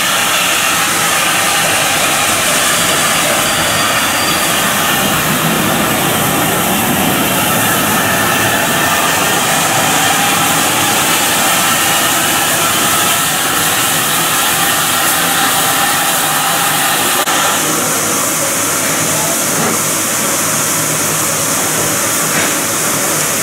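Loud, steady hiss of steam from the Hunslet Austerity 0-6-0 saddle tank locomotive NCB No.19, with a slight change in tone about three-quarters of the way through.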